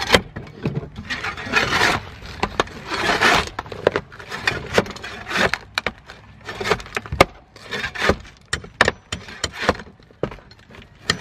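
Shovel blade jabbing and scraping under layers of old asphalt shingles on a wooden roof deck, prying them up: a quick, uneven run of knocks and scrapes as the blade strikes the deck and the shingle nails.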